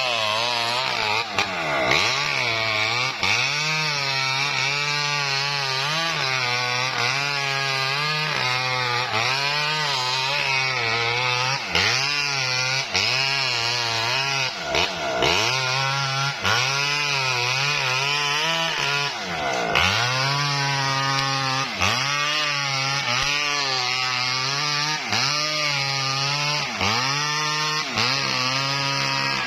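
Small Maestro chainsaw ripping lengthwise through a coconut palm trunk. The engine speed sags and recovers about once a second as it loads up in the cut.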